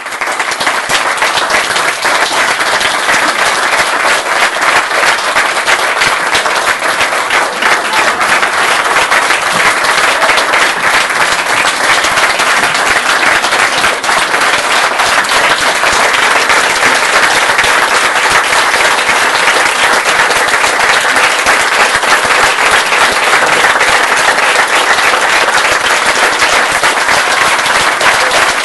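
Theatre audience applauding: many hands clapping in a dense, steady, loud patter.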